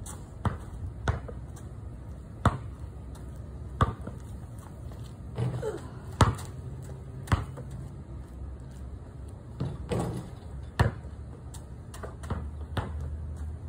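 Basketball bouncing on a concrete driveway: sharp thuds at irregular gaps of one to a few seconds, a couple of the hits ringing on briefly.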